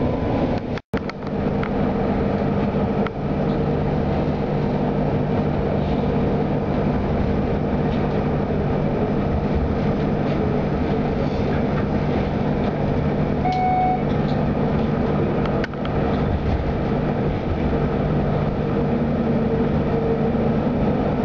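Electric tram running along street rails, heard from inside the passenger cabin: a steady rumble with a constant low motor hum. The sound drops out briefly about a second in, and a short tone sounds about two-thirds of the way through.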